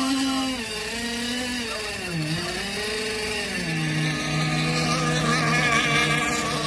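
Engines of radio-controlled racing boats running at high revs. Their pitch dips about two seconds in, then rises again, and the sound turns sharper near the end as a boat passes close.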